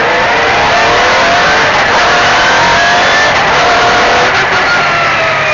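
MG Metro 6R4 rally car's V6 engine running hard on a rally stage, its pitch rising and dropping several times through the gears.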